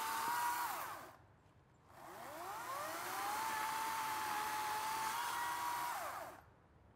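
Ryobi electric chainsaw running at full speed with a steady high whine; the trigger is released about a second in and the motor winds down, then it is squeezed again and the saw spins back up, holds, and winds down once more near the end.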